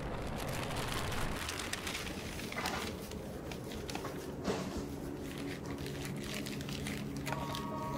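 Plastic bag and paper wrapper rustling and crinkling as a sandwich is pulled from its bag and unwrapped by hand. Music comes in softly partway through and grows clearer near the end.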